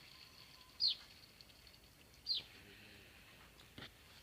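A small animal's call in the tree, a sharp high chirp that sweeps quickly downward, heard twice about a second and a half apart.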